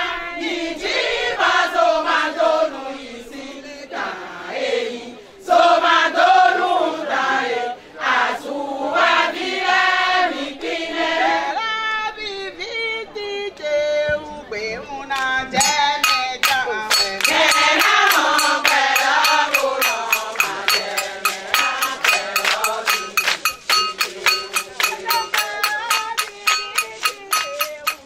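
A group of women singing a chant-like song together. About halfway through, a steady hand-clapped beat comes in under the singing.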